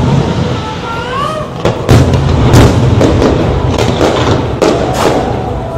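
Aerial fireworks bursting: a quick series of sharp bangs and deep booms, with a heavy low rumble building from about two seconds in.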